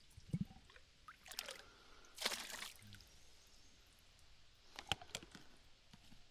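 Water from the creek pouring and splashing briefly in a filter water bottle, with handling knocks and a few sharp plastic clicks from the bottle.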